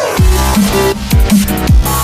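Electronic drum-and-bass music: a heavy beat with deep bass drops that fall in pitch, about two a second, over synth chords.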